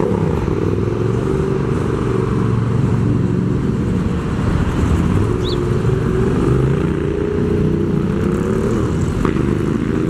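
Motorcycle engine running as the bike rides off, its pitch rising and falling with the throttle.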